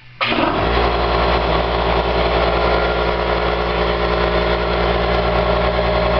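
Electric air compressor switched on, its motor starting abruptly a fraction of a second in, briefly spinning up, then running loud and steady under load from the inverter and battery bank.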